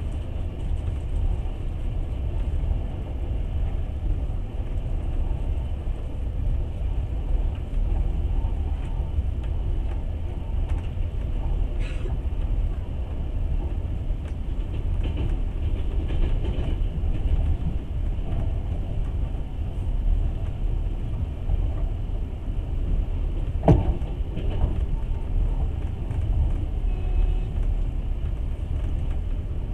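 Steady low rumble of a passenger train running along the line, heard from inside the carriage, with a sharp knock about three-quarters of the way through.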